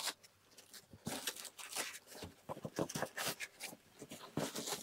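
Styrofoam packing blocks and plastic-wrapped parts being handled and pulled apart: a string of irregular scrapes, squeaks and crinkles.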